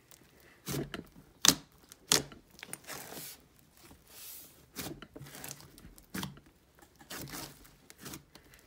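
A huge mixed batch of slime being kneaded and squeezed by hand, giving irregular sharp crackles and pops with softer squishing between them.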